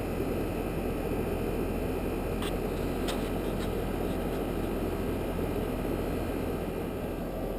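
Old central air conditioner's outdoor condensing unit running steadily, compressor humming under the condenser fan's rush of air. The compressor, which would not start on its own, is running after a 5-2-1 hard start kit was added; the unit is on borrowed time.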